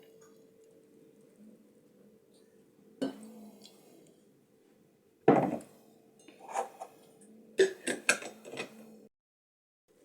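Cutlery and dishes clinking and knocking now and then, with a quick cluster of clinks near the end, over a faint steady hum. The sound cuts off abruptly about a second before the end.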